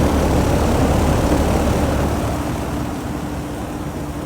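Heat pump outdoor unit running: the condenser fan blowing over a low rumble and a steady compressor hum, getting gradually quieter over the last couple of seconds.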